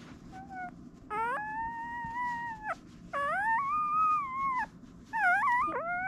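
Newborn German Shepherd puppy crying in a run of long, high, drawn-out wails, each rising at the start and then held for about a second and a half, with a shorter wavering cry between them, as its rear is rubbed with a wipe to stimulate it to relieve itself.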